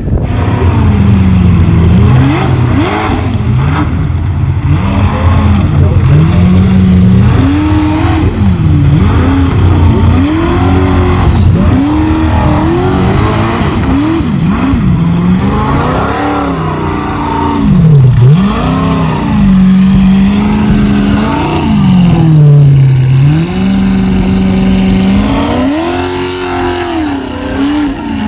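Formula Offroad race buggy's engine running at high revs, its pitch repeatedly climbing and dropping as the throttle is worked hard, with a deep rumble underneath.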